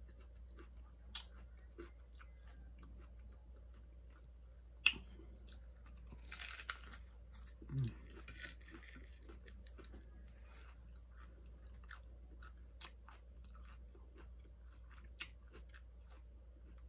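Close-miked chewing of a crunchy hard-shell taco: the shell crackles and crunches in many small, crisp snaps, with one sharper crunch about five seconds in.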